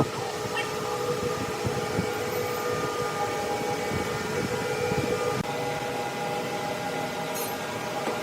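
Sawmill machinery running with a steady whine of several held tones over a dense mechanical noise.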